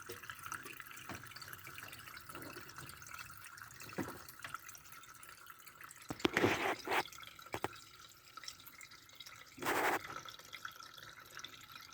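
Water draining and dripping from the freshly unclogged drain of a Sanken twin-tub washing machine, a steady trickle. A few short louder splashes or knocks come after the middle and near the end.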